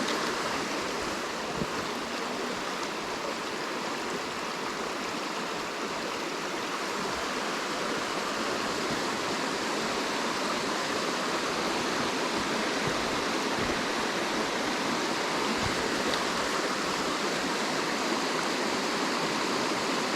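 Creek water running over rocks: a steady rushing and babbling.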